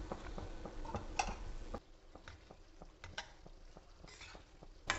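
Sliced stink bean seeds frying gently with spices in a stainless steel wok over medium-low gas, giving many small crackling ticks, while a perforated steel spatula stirs and scrapes the pan a few times.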